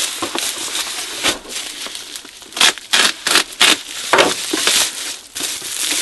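Plastic bubble wrap crinkling and crackling as it is pulled off and folded back from a cardboard box by hand, with a run of sharp crackles about halfway through.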